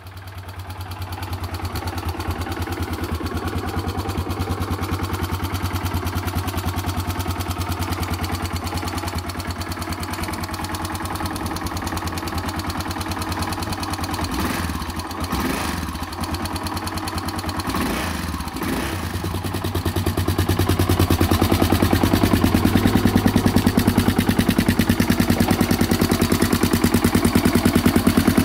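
Yamaha XT600E single-cylinder four-stroke idling steadily through its stock Yamaha muffler. From about twenty seconds in it idles louder and fuller through an Endy aftermarket silencer with its dB killer insert fitted.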